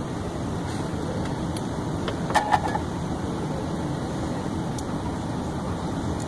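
Steady low background noise with no clear pitch or rhythm, broken by two brief clicks about two and a half seconds in.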